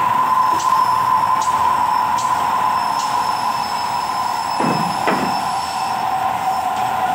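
Milling machine running with a steady high whine over a hiss. Two dull knocks come about two-thirds of the way through, and the whine drops a little in pitch near the end.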